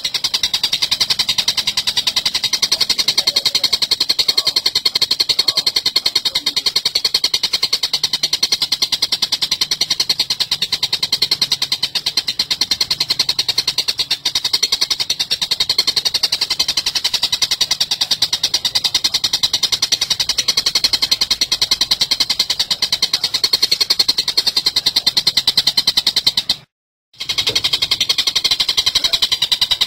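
Oriental dollarbird giving a fast, harsh chattering call, a continuous rattle of rapid high-pitched notes, broken once by a brief silence near the end.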